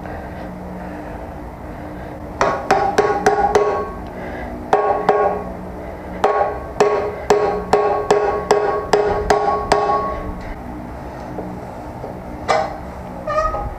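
Hammer blows on a screwdriver driven against a steel BMX part, each blow ringing out with a metallic clang. They come in three bursts of quick strikes, about two or three a second, with a short pair of knocks near the end.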